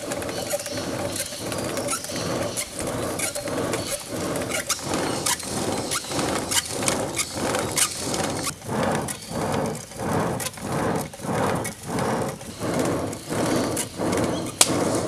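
Hand-driven clay blower whirring as its wooden spindle is spun back and forth in the clay housing, forcing air into a fire. It goes in a rough, continuous rush at first, then settles into even strokes about two a second. Sharp crackling clicks from the burning fire run through it.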